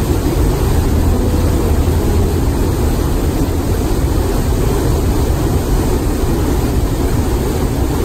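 Sogi Falls, a broad waterfall: river water rushing over rock ledges in a steady, loud rush with a deep rumble. The sound cuts off at the very end.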